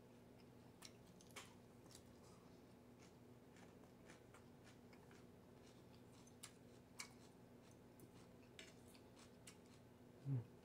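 Near-silent table sounds of someone eating: faint scattered clicks of wooden chopsticks and a metal spoon against the plate and bowl, over a low steady hum. Near the end there is one short, louder low sound, like a brief hummed 'mm'.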